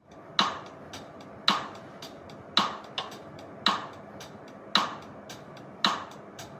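A steady percussive beat: sharp clap-like hits about once every second, evenly spaced, with fainter ticks between them, from background music.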